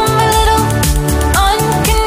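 Background pop music with a steady beat and a held melody line.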